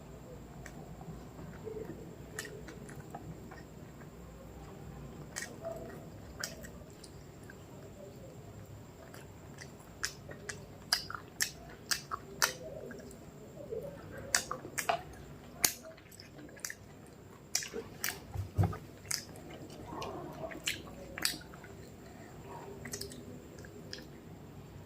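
A person chewing food close to the microphone, with wet mouth clicks and lip smacks. The chewing is soft at first and turns into a quick run of sharp smacks from about halfway through, easing off near the end.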